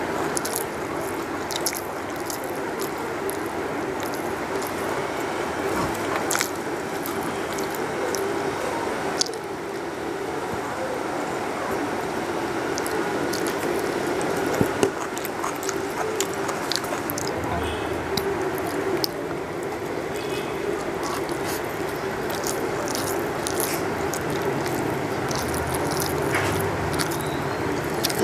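Close-miked eating by hand: fingers mixing rice with curry on a steel plate, and wet chewing, giving many small clicks and smacks over a steady low hum.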